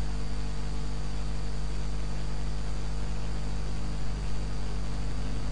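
Steady electrical mains hum with an even hiss underneath, a constant buzz that does not change.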